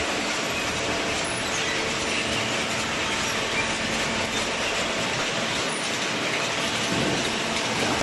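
Hydraulic carton baler running: a steady, dense mechanical din with a continuous rattle.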